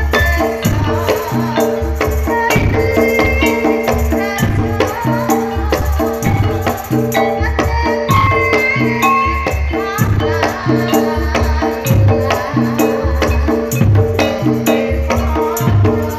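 Live Javanese traditional ensemble music: wooden-keyed instruments struck with wooden mallets over a steady, regular drum beat, accompanying a woman singing into a microphone.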